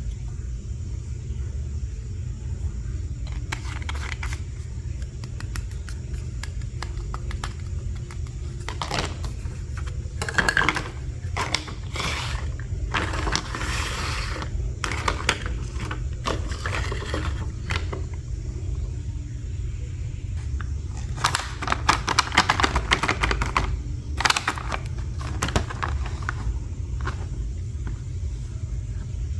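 Small plastic toy pieces and their packaging being handled and unboxed: scattered clicks, scrapes and crackles, busiest in two stretches, over a steady low rumble.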